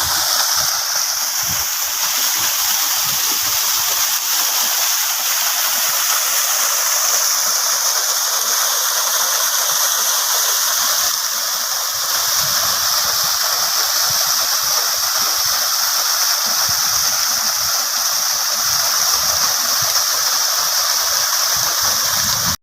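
Waterfall pouring steadily, a loud, even rush of falling water. This rain-fed fall is running full after recent rains.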